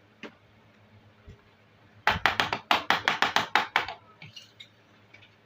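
Miniature plastic toy kitchen pieces being handled: a single click, then a quick run of about a dozen sharp plastic taps over roughly two seconds, then a few faint ticks.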